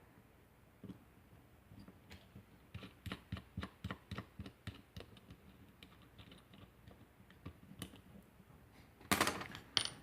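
Small metal clicks and taps from handling a pin-tumbler lock cylinder and its picking tools, with a quick run of clicks in the middle and a louder metallic rattle near the end.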